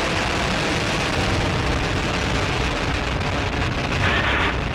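Soyuz-2.1a rocket's first-stage engines, the four strap-on boosters and core stage, firing during ascent: a steady, dense rushing noise with no breaks.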